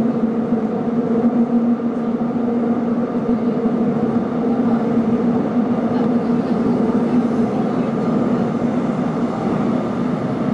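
Seoul Metro Line 4 subway train running at speed through a tunnel: steady rumble of wheels on rail with a constant hum and its tone an octave above.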